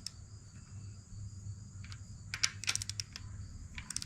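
Inch-pound torque wrench ratcheting in short runs of sharp clicks while tightening the cam cap bolts on a KA24DE cylinder head to 17 inch-pounds.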